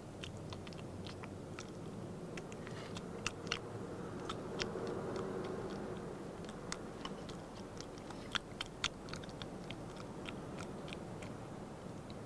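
A badger crunching and chewing peanuts from a trough, in quick, irregular crackling bites over a steady low hum.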